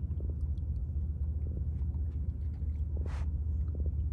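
Hooked small black drum splashing at the surface, with a short splash about three seconds in as it is lifted out of the water, over a steady deep rumble and a few light ticks.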